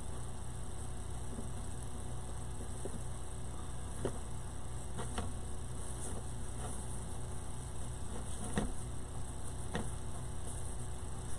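Steady low electrical hum, with a few faint taps and rustles now and then as wreath materials are handled.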